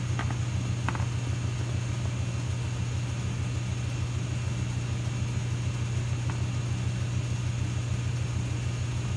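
A small motor running steadily with a low hum and a fast, even pulse, over an even hiss, with a few light clicks near the start.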